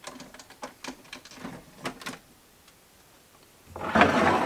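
A run of plastic clicks and knocks as a Keurig coffee brewer is loaded and its lid closed. About 3.7 s in comes a loud crinkling rustle, lasting about a second, as a foil coffee bag is picked up.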